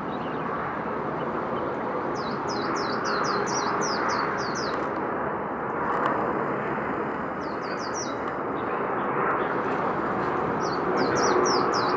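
A small bird calling in quick runs of short, high, down-slurred notes, about four a second, in three bouts: a long run about two seconds in, a short one past the middle, and another near the end. Underneath is a steady, fairly loud outdoor noise with no clear pitch.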